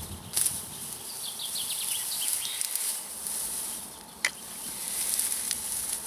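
Dry, dead bracken fronds rustling and crackling as they are grabbed and pulled together by hand, with a sharp click about four seconds in.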